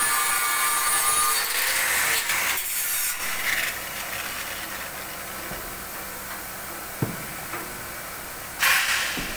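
Scraping, hissing workshop noise from work on a welded aluminium boat deck frame. It is loudest in the first three seconds, then settles quieter, with a sharp knock about seven seconds in and a short hiss near the end.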